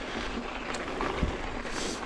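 Yeti SB150 mountain bike rolling over a dirt trail: tyre noise on the ground with a few sharp clicks and knocks from the bike and trail, over a low wind rumble on the microphone.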